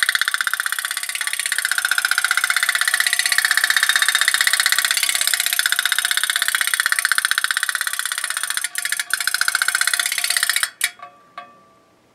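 Toy putt-putt (pop-pop) steamboat running on its candle-heated boiler: a rapid, even putt-putt popping. It stops near the end, followed by a few light knocks.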